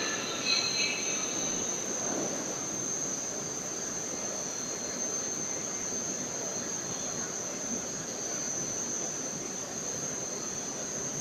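Steady hum of a standing 81-760 Oka metro train with its doors open, over a steady high whine. A high squeal fades out in the first second or so.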